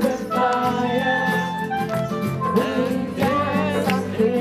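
Live music: singing over guitar and other instruments.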